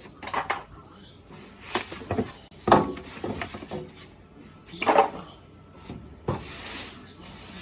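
A new microwave's cardboard box and packing being handled while it is unpacked: a handful of separate knocks and bumps, then about a second of rustling near the end.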